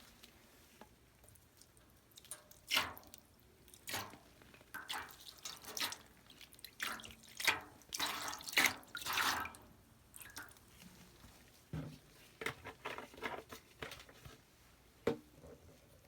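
Water dripping and splashing in irregular small splashes, some louder than others, with a quieter gap around ten to twelve seconds in.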